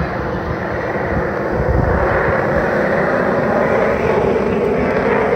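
Jet noise of an F-22 Raptor's two Pratt & Whitney F119 turbofan engines, a steady rushing rumble that grows louder about two seconds in.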